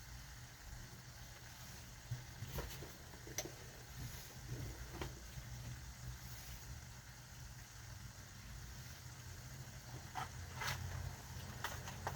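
Faint kitchen noises while cooking: a steady low hum with scattered light clicks and knocks, a few more of them near the end.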